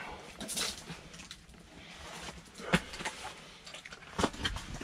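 Handling noise inside an ice-fishing shelter: fabric rustling and several sharp knocks and clicks as gear and a bucket are moved about.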